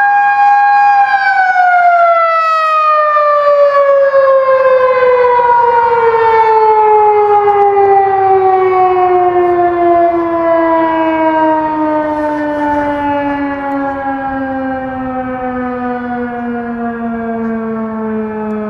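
Outdoor warning siren holding a steady high tone for about a second, then winding down in one long, slow fall in pitch, getting slightly quieter: the siren has been switched off and is coasting down.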